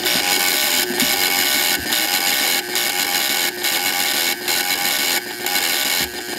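An electromechanical relay sequencer running: a loud, dense mechanical clatter of relays switching, starting abruptly, with short breaks about every second.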